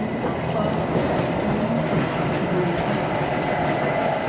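Berner Oberland Bahn passenger train running along the track, heard from inside the carriage: a steady rumble of wheels on rails with a few faint clicks.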